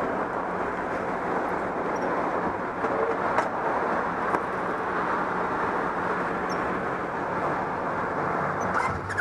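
Motorcycle engine idling under a steady rush of street noise, with a couple of light knocks about three and a half seconds in.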